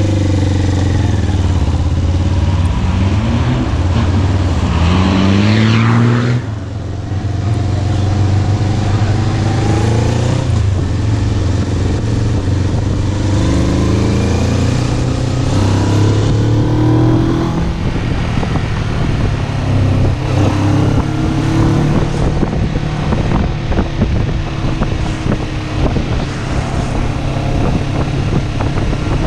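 Motorcycle engine heard from the rider's seat, pulling through the gears: its pitch rises in several climbs with a brief dip at a gear change about six seconds in. Later it settles into steadier cruising with more wind noise on the microphone.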